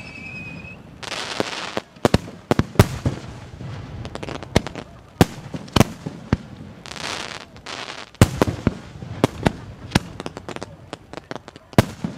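Ikebun aerial fireworks going off: an irregular rapid series of sharp bangs and shell bursts, sometimes several a second, with stretches of hiss between them.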